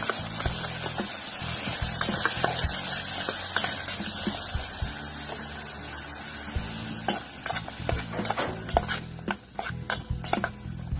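Chopped onions sizzling in hot oil in a stainless steel pot while a metal spoon stirs them. The sizzle dies down about two-thirds of the way in, and sharp clinks of the spoon against the pot take over.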